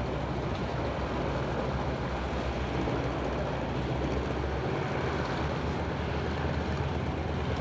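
Steady engine drone and rushing hiss inside an aircraft cabin in flight, a low constant hum under an even noise.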